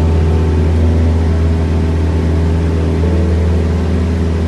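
Steady drone of a Cessna 172's piston engine and propeller heard from inside the cabin in cruise flight, a deep, even hum over a noise haze.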